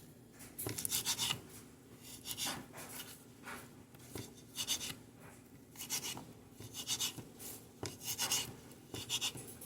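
Kitchen knife chopping fresh herbs on a cutting board: irregular bursts of short cuts with the blade scraping and rubbing against the board, separated by brief pauses.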